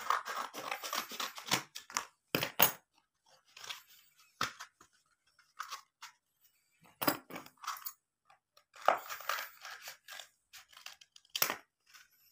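Sheets of paper and card being handled: irregular crackling rustles with a few sharp clicks.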